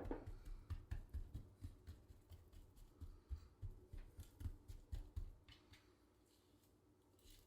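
Hands rubbing dry seasoning into raw meat: a quick run of faint, soft thumps and scuffs, about three or four a second, stopping about five and a half seconds in.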